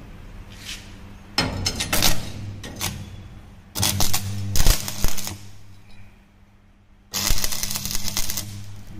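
Stick (shielded metal arc) welding on steel plate: the arc crackles and sputters in three short bursts, each about a second long, as tack welds are laid, over a low electrical hum.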